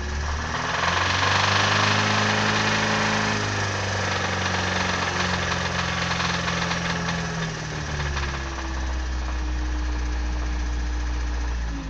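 Nissan Sunny GTi's SR20DE engine, heard from inside the cabin, climbing from idle to higher revs, held there, then dropping back to idle about eight seconds in. A knocking rattle comes with the raised revs, a noise whose cause the owner cannot identify.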